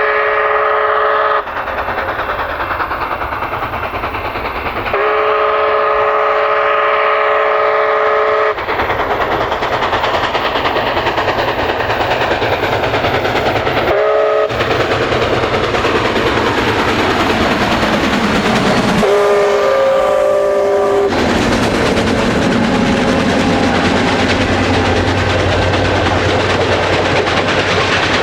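Canadian Pacific 2816's steam whistle sounding the grade-crossing pattern of long, long, short, long, with the same steady chord in each blast, over the continuous rumble of the train running.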